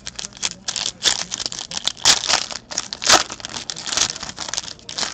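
Foil wrapper of a 2013-14 Crown Royal hockey card pack being torn open and crinkled by hand: a dense run of crackling, loudest about two and three seconds in.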